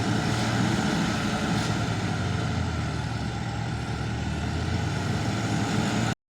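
Heavy diesel engine running steadily with a low drone. The sound cuts off abruptly near the end.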